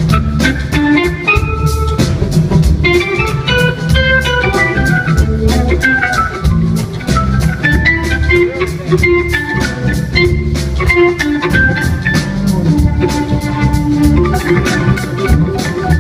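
Live funk band jam, recorded from the audience: keyboard lines playing quick runs of notes over a heavy bass line and a steady drum beat.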